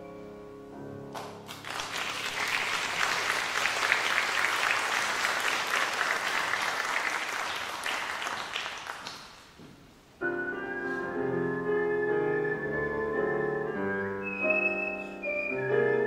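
Concert-hall audience applauding for about eight seconds as a piece for whistling and piano ends. Then a grand piano begins a new piece about ten seconds in, and a whistled melody joins near the end.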